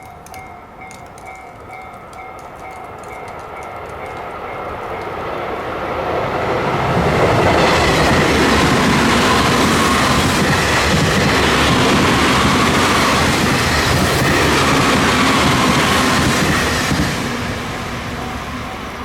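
Level-crossing warning bell dinging in a steady repeating pattern as a JR East E351 series limited express electric train approaches and runs past for about ten seconds, drowning the bell out. The train noise then falls away and the bell carries on.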